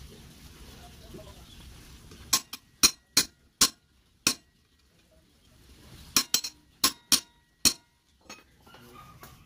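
Hammer blows on a hand impact driver set in a motorcycle brake-disc bolt: sharp, ringing metallic clinks in two bursts of about half a dozen strikes each, starting about two seconds in and again about six seconds in, with a last faint tap near the end.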